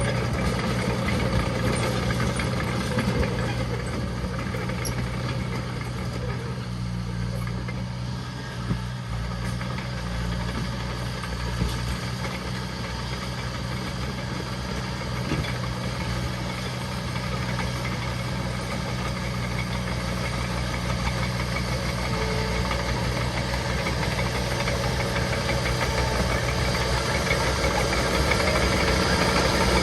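Diesel engine of heavy earthmoving machinery running steadily. It grows louder over the last ten seconds or so.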